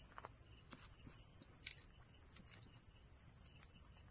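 Night insects chirring in a steady, high-pitched chorus, with a faint regular pulsing above it.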